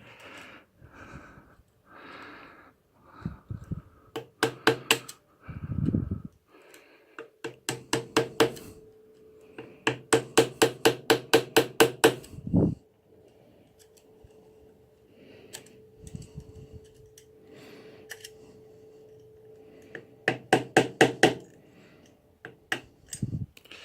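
Screwdriver being tapped under the bent-over locking tab of a clutch nut to lift it, in several quick runs of sharp metal taps, the fastest about six a second. A faint steady hum runs through the middle.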